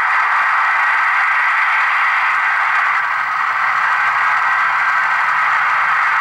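Sound-fitted Bachmann Class 55 Deltic model locomotive, with a LokSound 3.5 decoder running Oliva's Trains sound file, playing its twin Napier Deltic diesel engine sound through a small bass-reflex speaker in the fuel tank while standing still: a steady, hissy engine drone.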